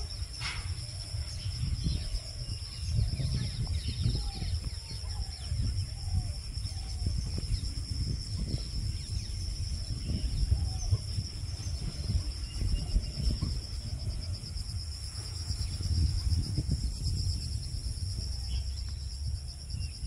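Steady, high-pitched insect chirring with a fast fine pulse, over a low rumbling noise. A few faint short rising-and-falling calls come about four to six seconds in.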